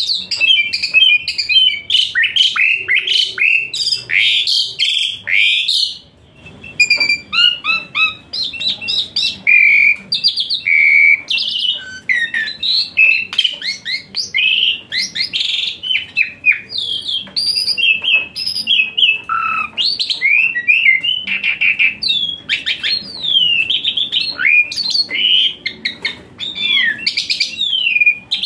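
Javan pied starling (jalak suren) singing a long, fast run of varied chirps, whistles and downward-slurred notes, with a brief break about six seconds in.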